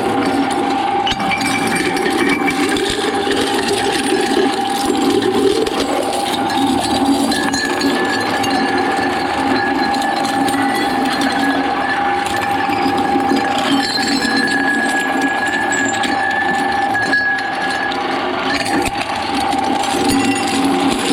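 Shredder machine running continuously, grinding and clinking through material over a steady whine.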